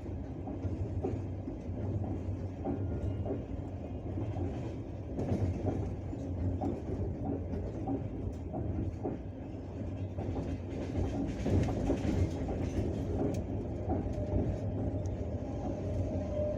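Passenger train running at speed, heard from inside the carriage: a steady rumble with the wheels clacking over the rail joints. Near the end a faint, held singing tone from the rails comes in.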